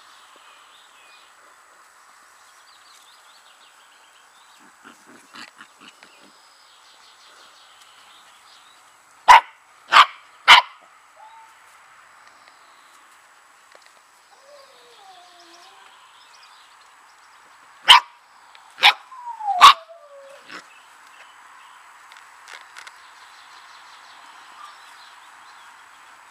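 Samoyed puppies, nearly six weeks old, yapping in play: three sharp high barks about nine seconds in, three more about eight seconds later, the last sliding down into a whine. A soft falling whimper comes between the two groups.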